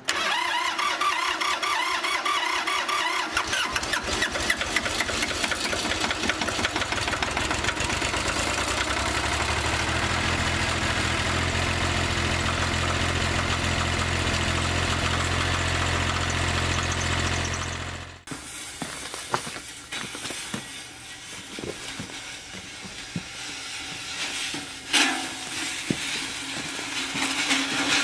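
Ford 1710 tractor's three-cylinder diesel engine cranked over by the starter on a cold morning. It catches within a few seconds and settles into a steady idle, puffing white smoke. The engine sound cuts off suddenly about two-thirds through, leaving scattered knocks and a louder thump near the end.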